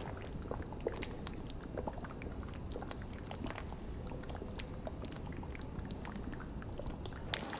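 Creamy chicken gravy simmering in an uncovered pan: a steady hiss with many small bubbling pops.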